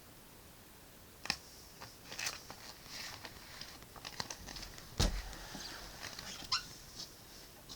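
Irregular scratching and rustling of paper being drawn on and handled, with several sharp clicks and a louder thump about five seconds in.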